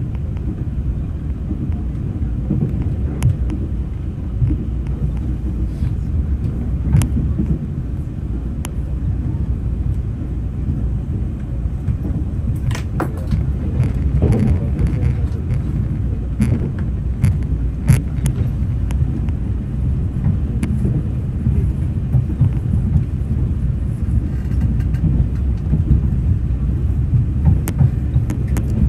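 Moving train heard from on board: a steady low rumble with scattered sharp clicks and knocks from the running gear.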